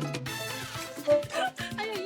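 Upbeat background music with a Latin, salsa-like beat; a short falling whoosh sounds at the very start.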